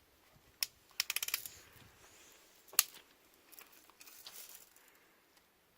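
Metallic handling sounds from an air rifle or BB gun: a single click, then a quick rattle of small clinks, then one sharp, louder click, as the gun is worked between shots.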